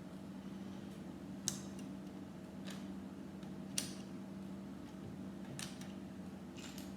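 Plastic Lego pieces clicking and tapping against each other as they are picked through by hand: a few sharp, separate clicks, the loudest about four seconds in, over a steady low hum.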